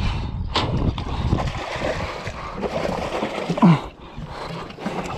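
Water splashing beside a boat as a reef shark attacks a hooked trevally at the surface, with a short loud sound that swoops in pitch about three and a half seconds in.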